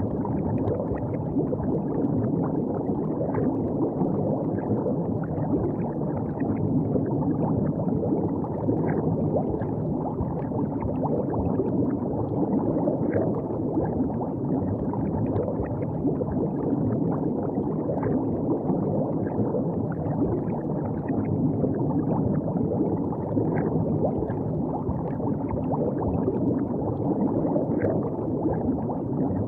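River water flowing and gurgling steadily, with many small lapping splashes.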